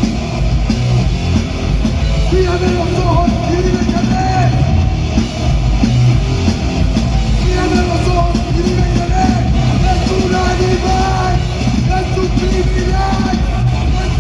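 Live band playing loud, heavy rock music, dense and continuous throughout.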